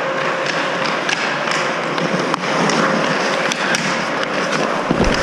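Ice skate blades gliding and scraping across a rink, with scattered sharp clacks.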